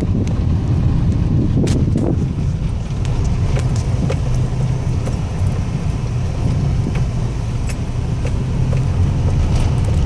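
Car driving along an unpaved dirt and stone road, heard from inside the cabin: a steady low rumble of engine and tyres, with scattered small clicks and knocks and a sharper knock about two seconds in.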